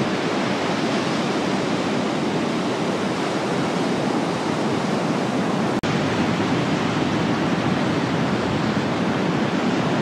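Rough surf breaking and washing up a sandy beach: a steady, even rush of waves. The sound cuts out for an instant about six seconds in, then carries on.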